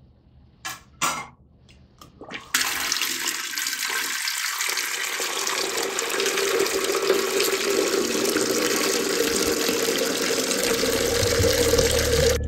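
Tap water pouring into the plastic water tank of a Xiaomi Mijia humidifier. After a few short knocks, the stream starts suddenly about two and a half seconds in and runs steadily, its pitch rising slightly as the tank fills.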